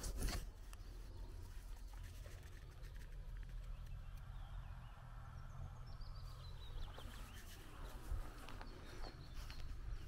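Quiet outdoor ambience: a couple of footsteps on gravel in the first moment, then a steady low rumble with faint birds chirping about halfway through.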